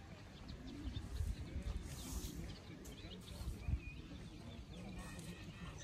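Faint bird chirps over outdoor ambience, with low rumbling gusts of wind on the microphone about a second in and again near four seconds.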